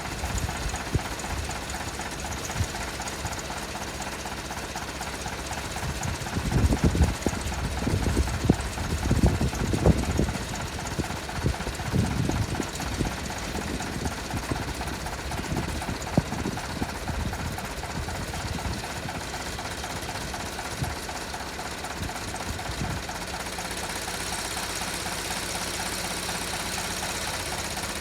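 Tractor engine running steadily, with a stretch of louder, irregular low rumbling and thumps a little way in.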